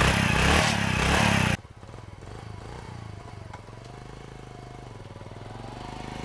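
Small motorcycle engine running close by. About a second and a half in, it drops away to a motorcycle farther off that rides closer and grows steadily louder.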